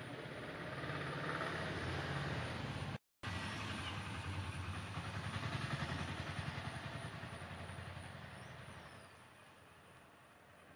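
A motor vehicle engine running nearby, rising and then fading away as it passes.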